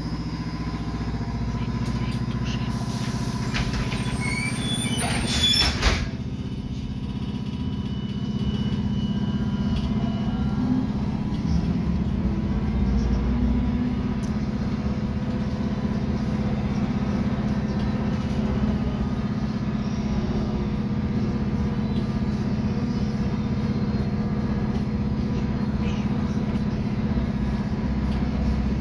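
Inside a LAZ E183A1 trolleybus: the doors close with a sharp clunk about six seconds in, then the trolleybus moves off and runs with a steady low hum and a faint steady whine.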